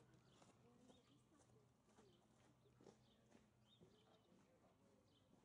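Faint hoofbeats of a horse moving on a sand arena, with small birds chirping now and then.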